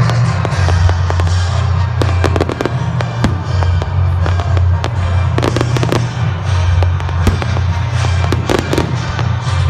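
Fireworks crackling and popping over loud music with a heavy bass line. Rapid runs of sharp cracks come thickest from about two seconds in.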